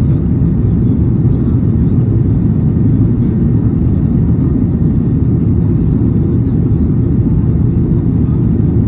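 Steady low rumble inside the cabin of a Boeing 737-800 climbing after takeoff: the drone of its CFM56-7B turbofan engines and the rush of air past the fuselage, heard from a window seat over the wing.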